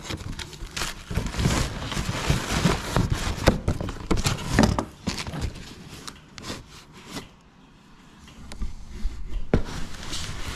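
Footsteps with rubbing and knocking handling noise as small parts are carried. There are dense irregular knocks at first and a quieter stretch about eight seconds in.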